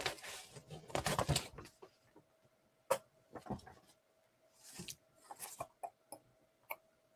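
Scattered light clicks and short rustles from things being handled on a desk. The densest rustling comes in the first second and a half, then isolated clicks. A faint steady tone hums under the middle part.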